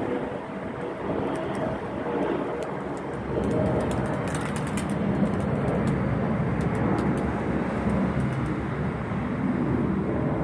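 Steady noise of wind on the microphone and distant city traffic, with faint pigeon sounds over it.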